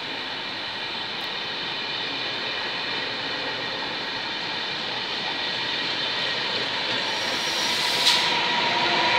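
Trenitalia Vivalto double-deck coaches rolling past on the rails: a steady rumble with a cluster of steady tones, growing louder toward the end. A short hiss about eight seconds in.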